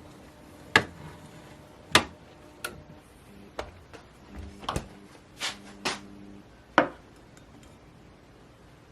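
Dishes and utensils being handled in a kitchen: about eight sharp clinks and knocks over the first seven seconds, with a faint low hum under the middle of them.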